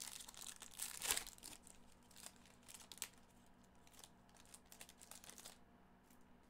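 Foil wrapper of a Panini Prizm football retail pack crinkling and tearing as the pack is handled and opened. The quick run of crackles is loudest about a second in and stops about five and a half seconds in.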